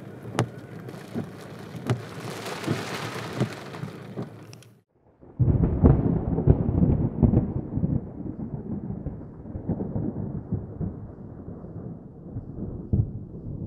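Sleet and small hail falling, a steady hiss with sharp ticks of pellets striking. About five seconds in it cuts off, and a louder, deeper, muffled rumble of thunder with rain takes over.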